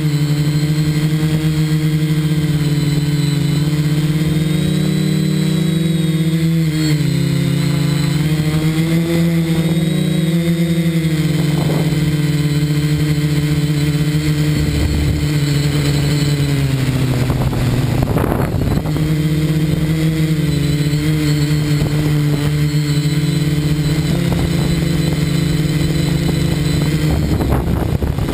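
Electric motors and propellers of an FPV multirotor drone in flight, heard through its onboard camera: a steady buzzing hum whose pitch rises and falls with the throttle, dipping noticeably about seven seconds in and again with a brief rush of noise about eighteen seconds in.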